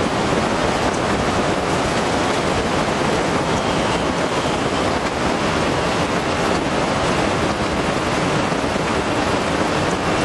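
Heavy rain falling steadily, a dense, even rushing with no distinct drops or thunder.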